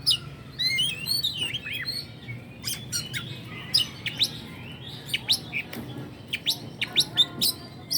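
Oriental magpie-robin (kacer) singing: a varied run of sharp whistled notes and chirps, with a quick flurry of rising and falling notes about a second in.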